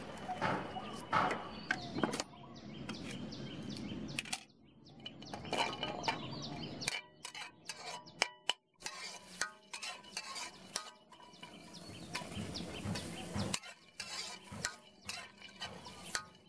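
Knife chopping on a wooden chopping board, then a metal spatula scraping and clinking against a wok as garlic, shallots and dried chillies are stirred, in many short sharp strokes.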